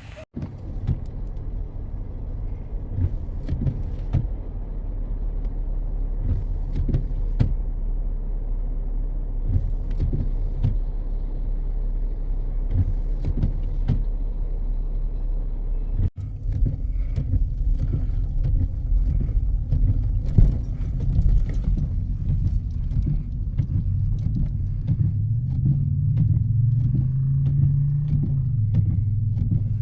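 Car driving: a steady low road and engine rumble, with scattered ticks and knocks over it and a brief break about halfway through.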